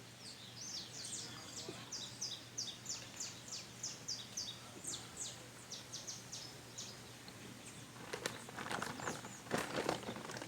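A bird calling a long series of short, high notes, about three a second, over a steady outdoor background; near the end the calls give way to a patch of rustling and clicks close by.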